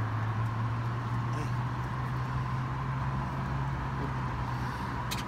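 An engine running steadily with a low hum, and one short sharp click near the end.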